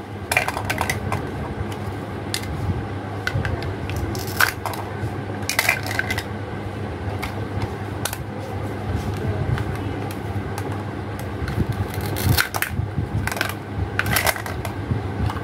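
Hard plastic toy fruit and vegetable pieces clicking and clacking as they are handled, cut apart with a plastic toy knife and set down. The sharp clicks come irregularly, over a steady low hum.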